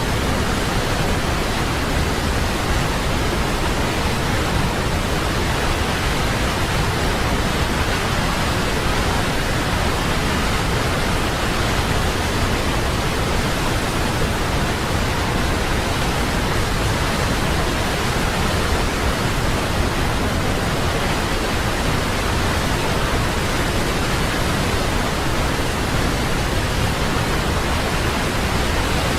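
Steady, unbroken rush of a waterfall, even in level throughout.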